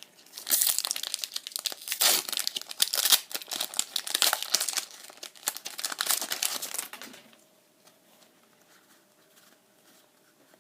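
Foil wrapper of a Pokémon trading card booster pack being torn open and crinkled in the hands, a dense crackling that lasts about seven seconds and then gives way to quiet handling of the cards.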